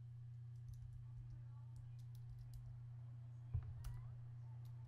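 A few faint computer mouse clicks and key taps, with a louder click about three and a half seconds in, over a steady low hum.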